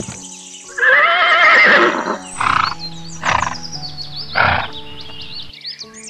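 Horse neighing sound effect: one loud wavering whinny about a second in, followed by three shorter noisy bursts, over background music.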